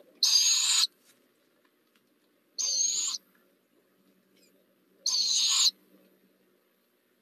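Barred owl owlet giving three raspy, high-pitched begging screeches, each about half a second long and spaced about two and a half seconds apart.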